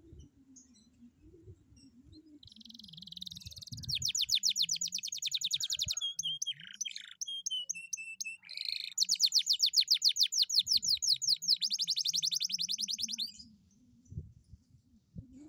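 Domestic canary singing a long, loud song of very fast rolled trills, with a short stretch of slower, lower notes in the middle. The song starts about two seconds in and stops a couple of seconds before the end.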